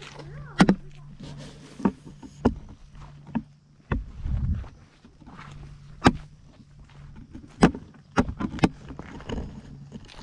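A series of irregular sharp knocks and scuffs, about a dozen over ten seconds, over a steady low hum.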